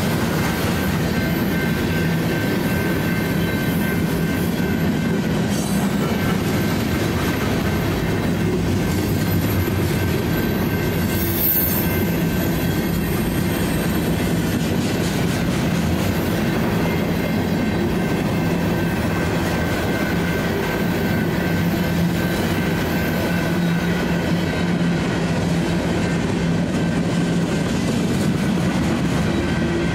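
A long freight train of loaded ballast hopper cars rolls steadily through a grade crossing, its wheels rumbling and clattering on the rails, with a brief high squeal partway through. Over it the crossing's Safetran Type 3 high-tone electronic bell keeps ringing.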